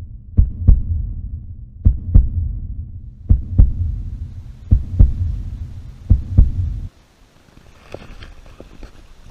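Heartbeat sound effect: deep double thumps (lub-dub), about one pair every second and a half over a low hum, five pairs in all, cutting off abruptly near the end. After that only faint outdoor background with a few light clicks.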